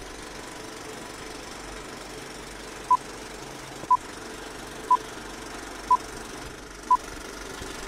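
Film-leader countdown: short, identical high beeps once a second, starting about three seconds in, over a steady whirring, crackly background noise like an old film projector.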